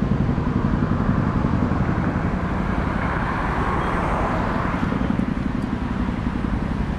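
Steady low rumble of a running vehicle, with a faint even hum underneath.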